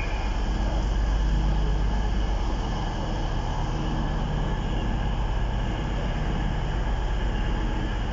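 Avanti West Coast passenger train running at the platform: a steady low drone with a few held low tones, loud and even throughout.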